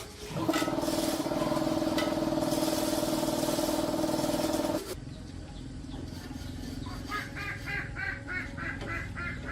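A motor runs with a steady hum for about four and a half seconds, then cuts off suddenly. Near the end, faint rhythmic chirping comes in at about three or four a second.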